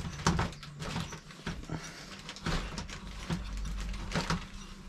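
Hand pipe cutter being turned around a thick aluminium bike fork steerer tube: the cutting wheel scrapes and clicks in uneven strokes as it bites into the tube. A steady low hum runs underneath.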